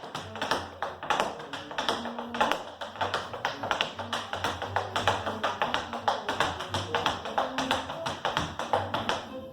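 Tap shoes striking the floor in quick, even strings of taps during a tap dance exercise, over recorded music with a steady bass line. The tapping stops at the very end.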